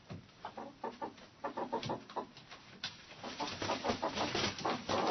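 Hens clucking in a chicken coop, several birds calling in quick, overlapping clusters of short clucks, getting busier and louder toward the end.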